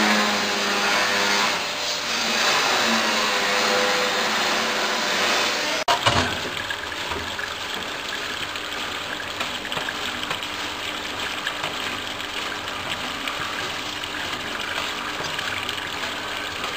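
Electric pepper-peeling machine running, its stainless-steel drum churning soaked peppercorns in water. After a sudden break about six seconds in, the sound is a steady splashing of waste water and pepper skins pouring from the outlet pipe onto a drain grate, with the machine still running.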